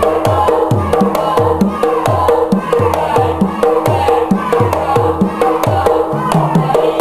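Music accompanying a traditional Indonesian bird dance: a drum beat of about two strokes a second, each stroke dropping in pitch, over quick clicking percussion and a sustained melody.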